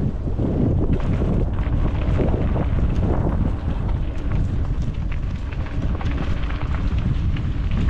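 Wind buffeting a GoPro's microphone as a mountain bike rolls fast down a dirt trail, with a steady run of small clicks and knocks from tyres and bike over the rough ground.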